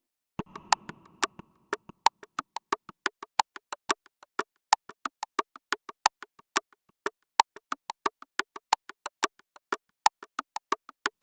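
Electronic background music: a steady run of short, clicky synth-percussion notes, about three or four a second, starting about half a second in.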